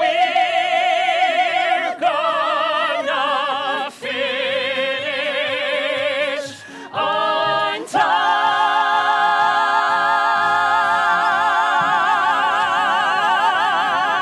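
Musical-theatre cast singing in harmony, several voices holding notes with wide vibrato in short phrases, then one long held final chord over the last six seconds as the number ends.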